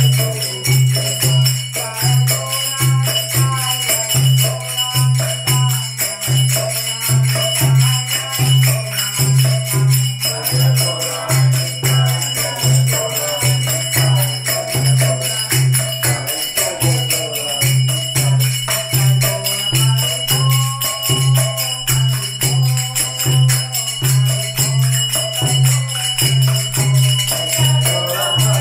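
Kirtan music: voices singing a devotional chant over ringing hand cymbals (kartals) and a steady drum beat, about two beats a second.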